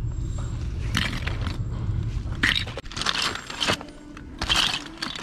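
Plastic action figures and toy parts clattering and scraping against each other as a hand sifts through a bin of them, in several short bursts, over a low rumble that fades after about three seconds.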